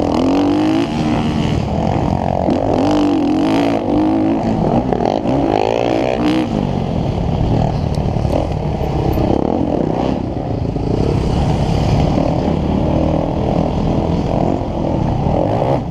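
Motocross dirt bike engine heard from on the bike, its pitch repeatedly rising and falling as the rider opens and closes the throttle around the track.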